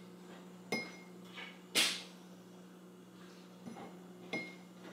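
A spoon knocking against the rim of a ceramic mug while an egg yolk is separated from its white: a few light clinks that ring briefly, and a sharper, louder knock a little under two seconds in. A steady low hum lies underneath.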